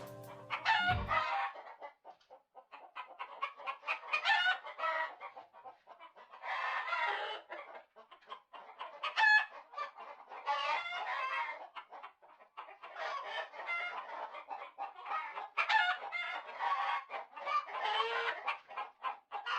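Chickens clucking and crowing in a long run of repeated, irregular calls.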